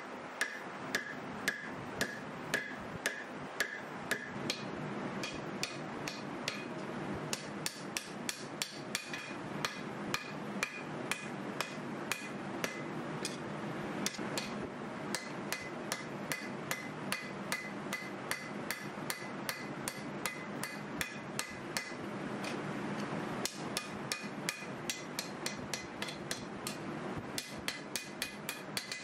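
Hand hammer striking red-hot W2 carbon steel on a steel anvil, forging a chef knife blade: a steady run of blows, about two to three a second, each with a short bright ring. There are a few brief pauses.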